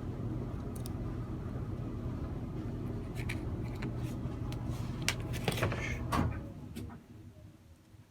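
Small clicks and taps of spinning-reel bail-arm parts being handled and fitted back together, over a steady low hum that cuts out near the end.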